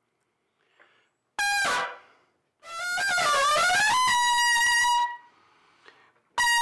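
Solo trumpet playing short phrases with bent pitches: a short note sliding down about a second and a half in, then a long note that dips and climbs back up before being held, and another note falling away near the end.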